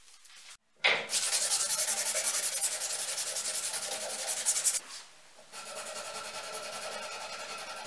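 Fine-grit sandpaper rubbed quickly back and forth by hand over a knife's epoxy resin handle set with birch twigs. A loud run of quick strokes starts about a second in, pauses briefly past the middle, then resumes more quietly.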